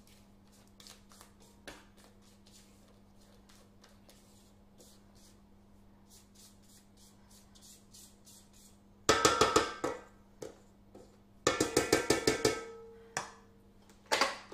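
Silicone spatula scraping cake batter around a Kenwood stand mixer's stainless steel bowl, faint at first. Then come two bursts of rapid knocks, about nine and eleven and a half seconds in, as the spatula is tapped against the metal bowl and beater, with the bowl ringing briefly after the second burst. Two single knocks follow near the end.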